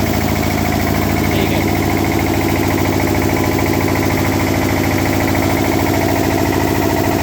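Engine of a 25 kW open diesel generator set running steadily at constant speed after its self-start.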